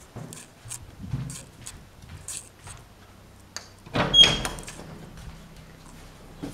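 A door opened about four seconds in, with a sudden bump and a short high squeak, amid small clicks and rustles of handling.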